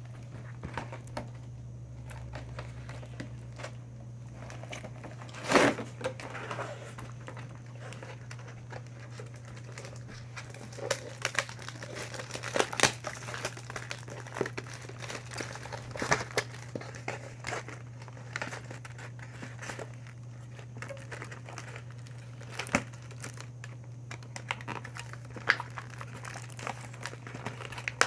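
Toy box packaging being opened by hand: irregular crinkling and tearing with scattered sharp crackles and snaps, the loudest about five seconds in and again around thirteen seconds, over a steady low hum.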